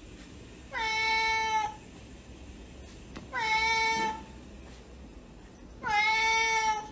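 A cat meowing three times, evenly spaced, each call about a second long and held on one steady pitch after a short rise at the start.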